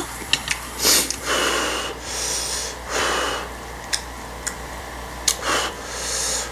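Utensils clicking sharply against a stainless-steel bowl as jjapaguri noodles are stirred and lifted, between several loud, hissy breaths and sniffs from the eater.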